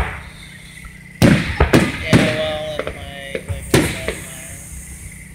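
Aerial fireworks shells bursting overhead: a rapid series of sharp bangs, each trailing off in an echo, starting about a second in, the loudest among the first few.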